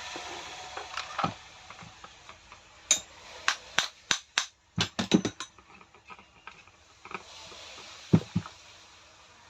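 Sharp clicks and knocks of a new armature with its bearings being pushed and tapped into a rotary hammer's housing. There are a few knocks at the start, a quick run of about a dozen in the middle, and two more near the end, as the part resists seating.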